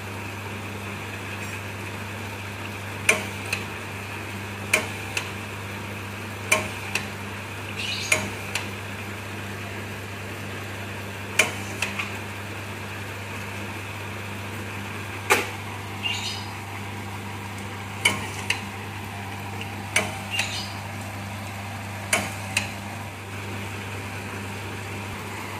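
Bamboo satay-skewer machine running with a steady electric motor hum, broken by sharp wooden clacks, often in pairs, every one to three seconds as bamboo strips are fed through its rollers.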